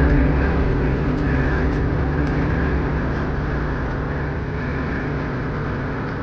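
Loud arena crowd noise over a steady low rumble, slowly fading after the music cuts off.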